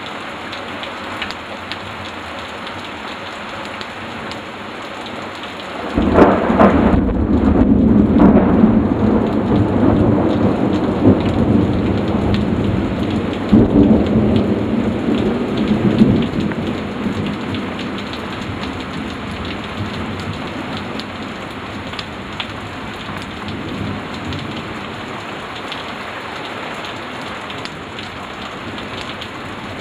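Heavy rain falling steadily, with a loud clap of thunder about six seconds in that rumbles on for ten seconds or so, surging again partway through before fading back to the rain.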